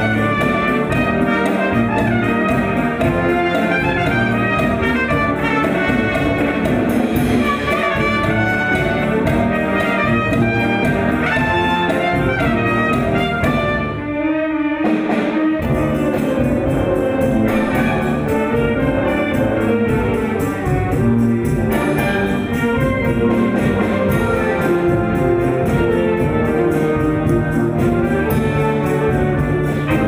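Instrumental background music, with a short dip in level about fourteen seconds in.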